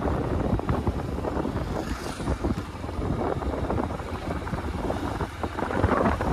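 Wind buffeting the microphone of a rider on a moving motorbike, with the bike's running and road noise underneath.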